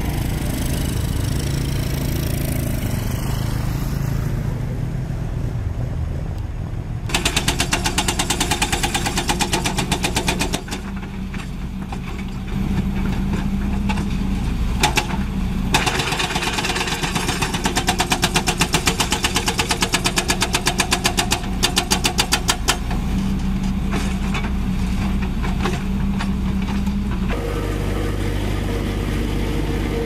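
A diesel engine running steadily. About seven seconds in, a hydraulic breaker on a Kobelco SK200 excavator starts hammering rock in rapid, evenly spaced blows. It pauses briefly, then hammers on in long runs. Near the end a tandem roller's engine takes over, running steadily.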